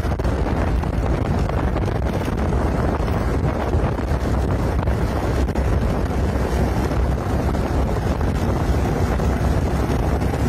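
Steady wind rush on the microphone of a moving motorcycle, with the motorcycle's engine running beneath it.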